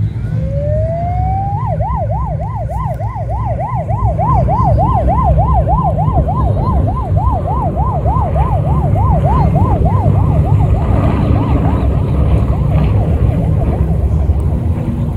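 Siren winding up in pitch, then switching to a fast yelp sweeping up and down about three times a second, fading out about eleven seconds in, over a loud low rumble.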